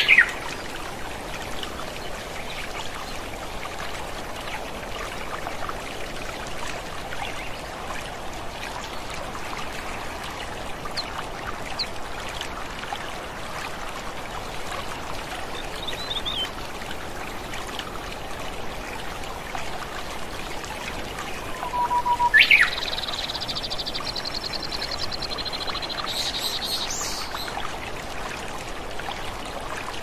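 Steady rush of a waterfall and stream, with occasional birds calling over it: a quick rising whistle at the start, a few brief high chirps, and about two-thirds of the way through a whistle that sweeps upward into a high trill lasting about four seconds.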